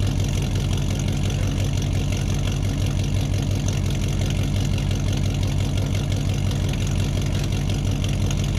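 Engine idling sound, steady and even, with a fast regular chug in its low end and no change in level. A toy like this cannot make it, so it is an added engine sound effect.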